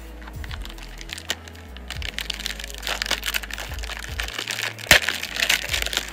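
Foil wrapper of a trading card pack being torn open and crumpled in the hands: crinkling and crackling that build from about two seconds in, with one sharp crack about five seconds in.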